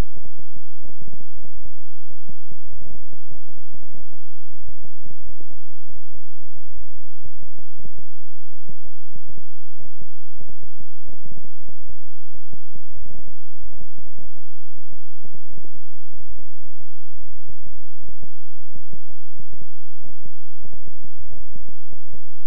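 Deep electronic frequency tone: a steady low hum under quick, uneven throbbing pulses, with almost nothing in the higher range.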